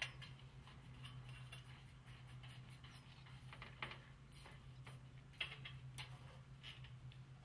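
Faint, scattered clicks and knocks of solar panels and their mounting hardware being handled and set onto metal rails, over a steady low hum.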